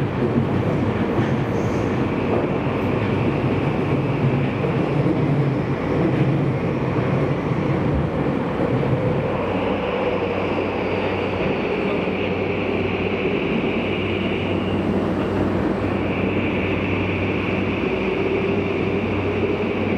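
Tokyu 5000 series electric train running through a subway tunnel, heard inside the car: a steady rumble of wheels on rail. A higher rushing sound comes in about halfway and breaks off briefly near the end.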